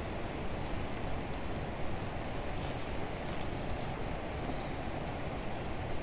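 Insects calling in a high, thin, steady tone that starts and stops every second or so, over a steady rushing background noise.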